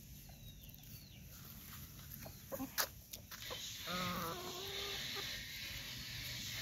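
Brown hens clucking softly while feeding, with a longer hen call about four seconds in. A few sharp clicks come just before three seconds in, and a steady hiss sets in shortly after.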